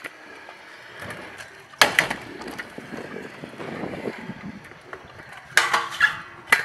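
Stunt scooter wheels rolling over skatepark concrete, with one sharp clack about two seconds in. Near the end, a quick cluster of loud metallic knocks and scraping as the scooter lands on and grinds a low metal flat bar.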